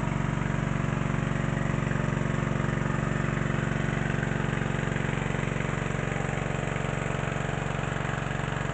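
Water-pump engine converted to run on LPG instead of petrol or diesel, running steadily at an even speed.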